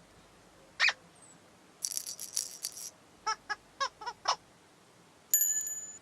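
A string of cartoon sound effects: a single pitched blip, a short rattle, six quick squeaky pips, then a bright bell-like chime that rings and fades.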